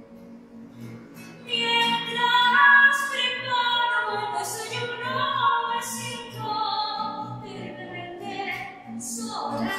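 A woman singing in a full, classical-style voice, accompanied by a classical guitar. The singing swells markedly louder about a second and a half in.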